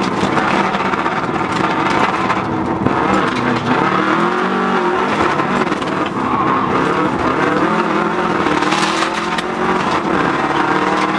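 Subaru Impreza rally car's turbocharged flat-four engine at full speed, heard from inside the cabin. The revs climb and fall again and again through gear changes and lifts, with a clear drop about four and a half seconds in.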